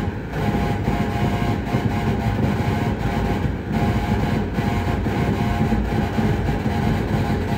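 Homemade light-responsive oscillator synthesiser driven by Morse-code light flashes, giving a dense, rumbling noise drone with a cluster of steady mid-pitched tones on top. It drops out briefly several times.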